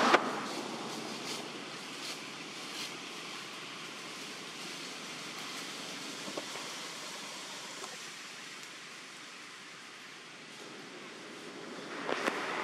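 Steady, even outdoor forest background hiss with a few faint ticks and leaf rustles, growing louder near the end.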